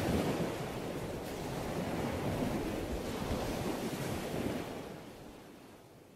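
Sea waves and surf washing in a steady noisy rush, fading out over the last second and a half.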